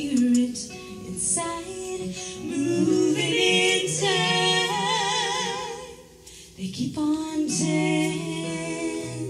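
Two women singing together in harmony, holding long notes with vibrato, with a brief drop to quiet about six seconds in before the voices come back.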